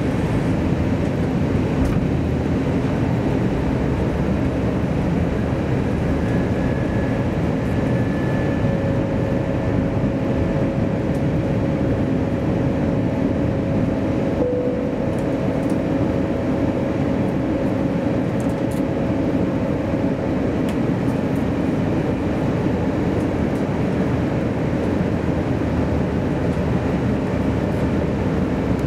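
Airliner cabin noise on the approach to landing, heard from inside the cabin: a steady rumble of jet engines and airflow. A couple of faint whines come and go in the middle.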